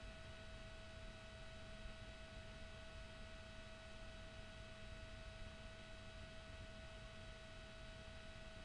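Faint, steady high-pitched tone with a few fainter tones above it, over a low, even background rumble; nothing starts or stops.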